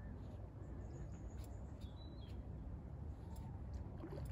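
Lakeside ambience: a steady low rumble with a few faint bird chirps about one to two seconds in.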